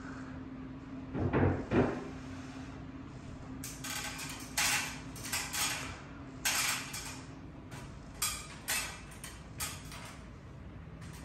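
Handling noises: two heavy knocks, then a run of short, sharp scraping or rustling sounds every half second to a second, over a steady low hum.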